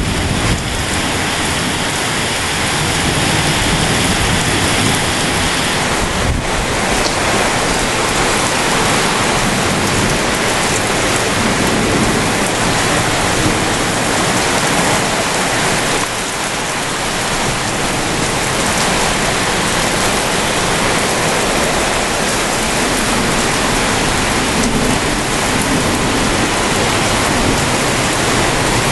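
Heavy rain pouring steadily in a thunderstorm, a dense, even hiss.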